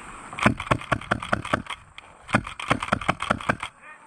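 Two rapid strings of sharp airsoft gunshots, about seven shots a second, the first starting about half a second in and the second near the middle, each lasting about a second and a half.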